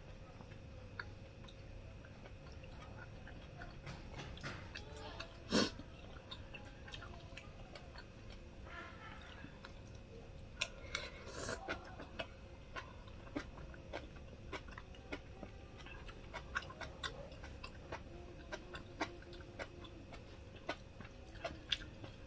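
A person chewing food quietly, with many small mouth clicks and smacks, and one sharper, louder sound about five and a half seconds in.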